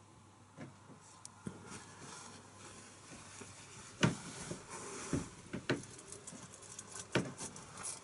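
Scattered light taps and clicks at an irregular pace, with a sharper knock about four seconds in and several more toward the end.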